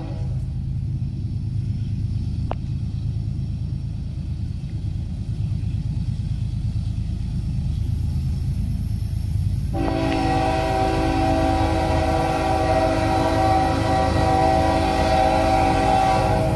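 Ferromex diesel freight locomotive approaching, its low engine rumble growing louder. About ten seconds in, its horn sounds a long chord blast that stops just before the end.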